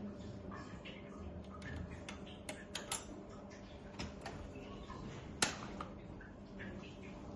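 Scattered light clicks and taps of small hard parts and hand tools being handled during e-bike headset bearing and front fork work, with one sharper knock about five and a half seconds in.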